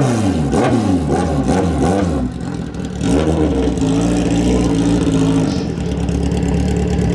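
Drag-racing motorcycle engine at the starting line, revved up and down in several quick blips, then brought up and held at a steady high rev for about two seconds before settling to a lower steady speed.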